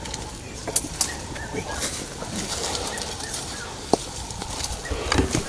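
Small birds chirping in the bush, with scattered sharp clicks, the clearest about four seconds in.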